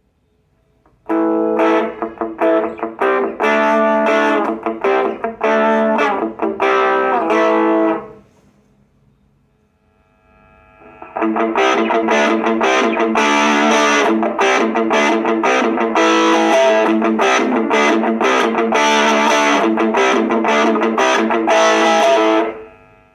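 Electric guitar (a Stratocaster with DS-Pickups Alnico V stacked pickups) played through a Cube Baby pedal into a Marshall MS-4 micro amp with distortion. There are two passages of chords and riffs, about seven and eleven seconds long, with a short pause between them. The tone is thin, with almost no bass.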